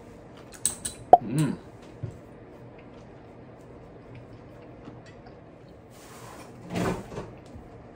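Light clicks of chopsticks against dishes, with two short closed-mouth hums from a man eating. One hum comes about a second and a half in, the other near the end after a short breath.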